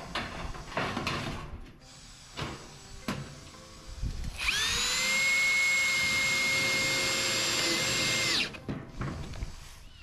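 Cordless drill driving a screw through corrugated metal roof sheeting into the timber lid. The motor winds up about four and a half seconds in, runs at a steady pitch for about four seconds, then stops. Before that come a few light knocks from the metal sheet being handled.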